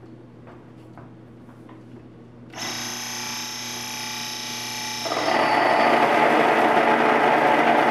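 A countertop electric grain mill switches on about two and a half seconds in and its motor whines while empty. About five seconds in, soft white wheat berries pour into the hopper and the sound turns into a louder, harsh grinding as the mill cracks the grain into flour.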